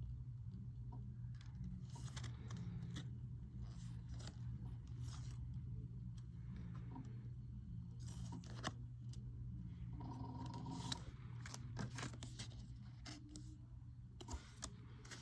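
Faint scraping, rustling and light clicking of collectible cards and disc packaging being handled, over a steady low hum.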